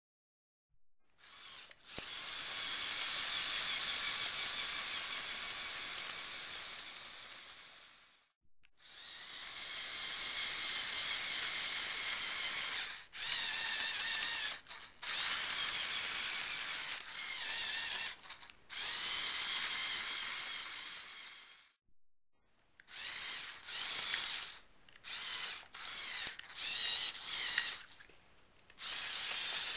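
Lego Technic Power Functions tracked chassis driving: electric motor whine with a clattering of plastic gears and tracks. It runs in long stretches with brief stops, then in short starts and stops near the end.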